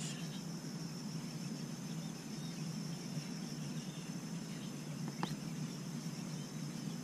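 Steady high-pitched insect chirring over a low outdoor background hum, with one faint click about five seconds in.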